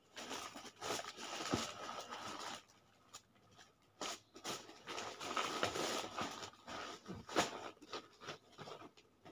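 Plastic medicine bags and packets rustling and crinkling as they are handled, in irregular bursts with a pause of about a second and a half partway through.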